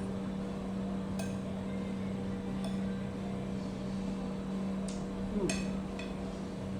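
A few light clinks of dishes or utensils, about five spread through, over a steady electrical hum.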